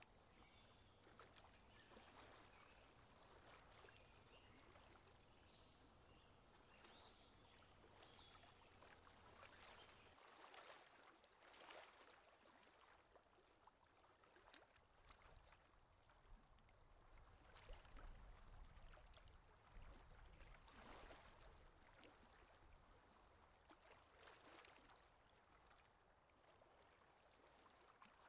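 Very faint river ambience: a soft rush of flowing water, with a low rumble underneath that drops away about ten seconds in.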